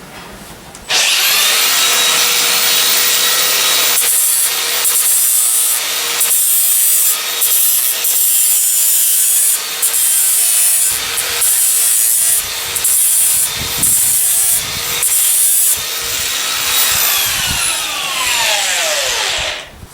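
Power grinder switched on about a second in and running with a steady whine, pressed against a horse's hoof in a series of short grinding passes. It is switched off near the end, its pitch falling as it spins down.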